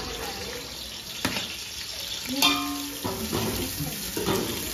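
Sliced onions sizzling in hot oil in a large aluminium pot as they are scraped in from a plate, with clinks of a metal spoon against the pot. The loudest is a single ringing clink about halfway through.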